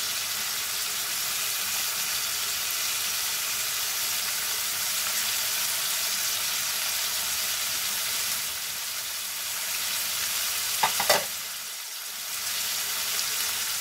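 Potatoes, onions and masala frying in oil in a karahi, with fresh capsicum, peas, dill and coriander just added on top: a steady sizzle. A quick cluster of clicks comes about eleven seconds in, followed by a brief lull.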